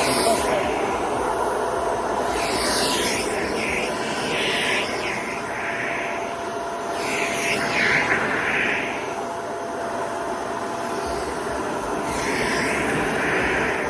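Dyson Ball Multifloor 2 upright vacuum cleaner running steadily with a whine, its airflow hiss swelling three times as it is worked over the floor.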